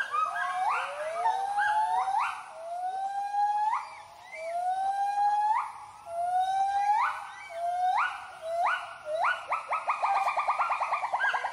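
White-handed gibbons giving their territorial hooting call. It is a series of loud whoops, each sliding sharply up in pitch and dropping back, about one a second. Near the end they quicken into a fast trill of rising and falling notes.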